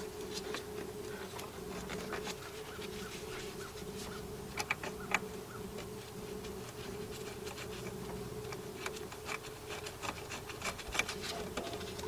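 A steady, even-pitched buzzing hum, with scattered light clicks and rubbing as gloved hands fit the metal top piece of a battery cable clamp over the spliced wire, two sharper clicks about halfway through.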